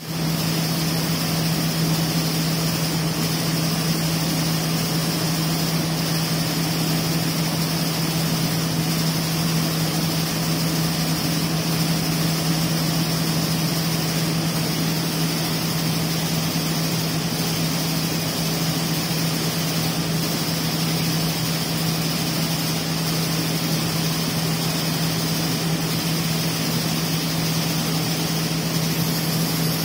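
Flour-mill machinery running with a steady, unchanging hum, over the hiss of wheat grain streaming from a spout onto a heap.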